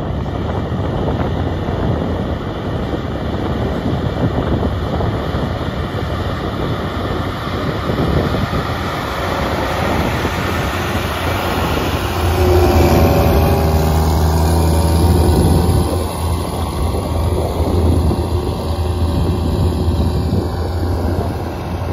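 Diesel engine of a Versatile 2375 articulated four-wheel-drive tractor running steadily under load as it pulls a laser land leveler across soil. The engine's low drone grows loudest a little past halfway, as the tractor passes closest, then eases off a little.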